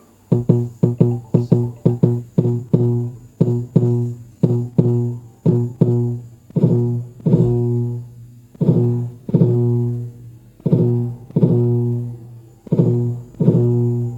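Samsung Galaxy S21 Ultra vibration motor buzzing in the Google Meet incoming-call vibration pattern, played back at changing speed. It is a rapid series of short, low buzzes, about four a second at first, that slows down, each buzz growing longer and the gaps wider until they come in pairs.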